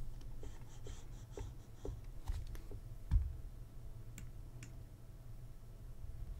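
Scattered light clicks and taps of someone working at a computer with a drawing tablet, about ten over the first five seconds, with one duller thump about three seconds in, over a low steady hum.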